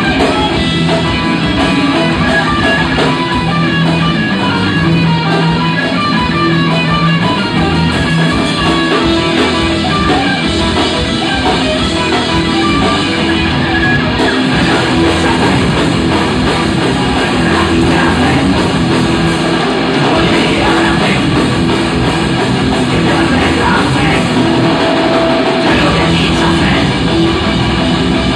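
Live rock band playing: electric guitars, bass guitar and drum kit, loud and continuous, with a male singer at the microphone.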